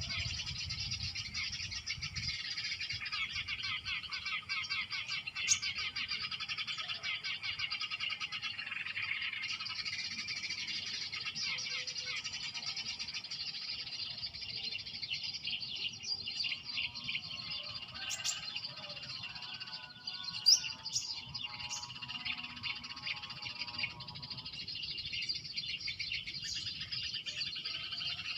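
Eurasian tree sparrow calls played through a speaker as a bird-trapping lure: dense, continuous chirping that thins out around the middle, with a lower, more tuneful bird call joining in partway through.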